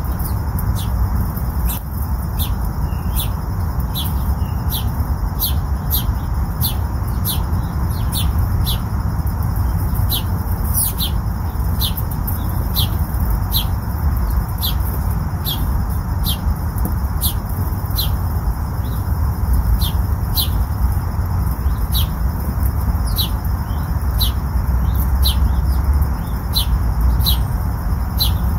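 A bird chirping over and over in short, sharp high chirps, about one or two a second, over a steady low rumble.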